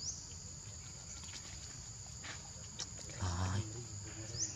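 Steady high-pitched insect drone with a few faint ticks. A short, low-pitched grunt-like voice comes a little over three seconds in.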